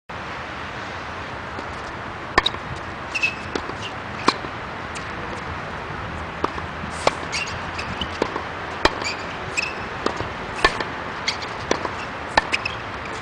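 Tennis ball struck with a racket in a volleying rally on a hard court: sharp pops about every two seconds, with softer clicks between, over a steady hiss.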